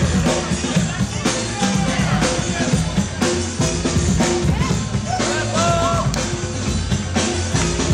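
Loud music with a steady, heavy drum beat.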